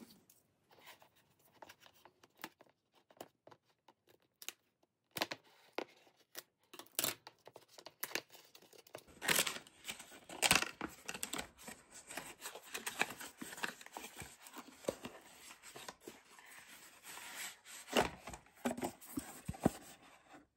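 Packaging of a boxed computer mouse, a clear plastic sleeve and a cardboard box, being torn and pulled open by hand. Scattered crinkles and clicks at first, then denser tearing and rustling of cardboard from about nine seconds in.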